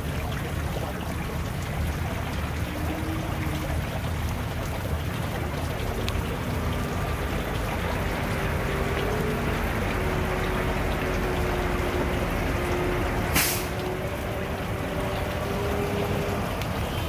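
Semi-truck's diesel engine running steadily as the tractor-trailer backs slowly, with one short sharp air-brake hiss about thirteen seconds in.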